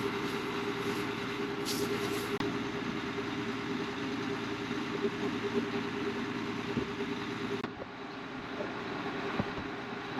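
Farm machine engine running steadily with a constant hum; the high hiss drops away suddenly near the end.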